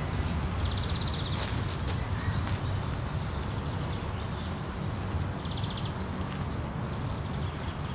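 Outdoor park ambience: several birds chirping and trilling in short high calls over a steady low rumble.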